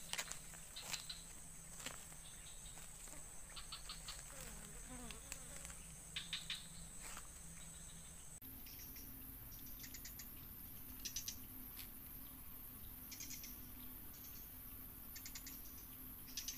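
Insects buzzing in a steady, high-pitched whine that shifts up in pitch about halfway through, with scattered short trains of rapid clicks.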